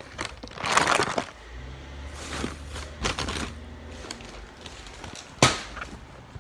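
Handling noise from a phone being picked up and moved around while it records: rustling and scraping against the microphone, with a sharp knock about five seconds in.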